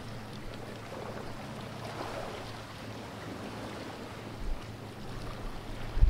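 Calm sea water washing and lapping against the rocks of a narrow inlet, swelling briefly about two seconds in. Underneath runs a faint steady low hum, and there are a couple of low thumps near the end.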